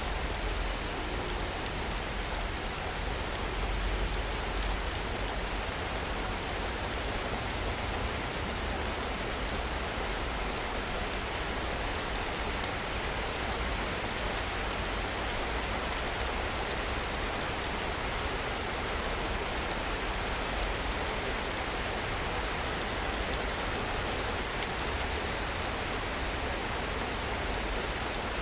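Steady rain falling in a city, an even hiss of rain with fine drop patter and a low rumble underneath.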